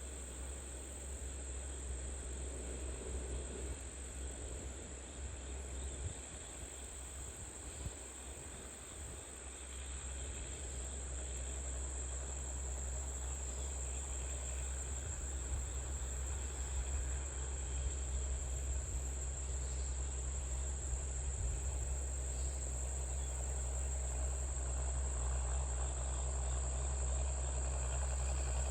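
A steady high insect chorus over the low, even running of a tractor engine. The engine grows gradually louder through the second half.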